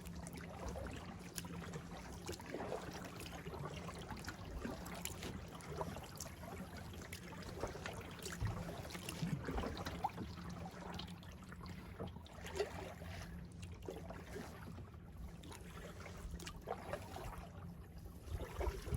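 Kayak paddle dipping into calm water with small splashes, trickles and drips off the blade, repeating irregularly.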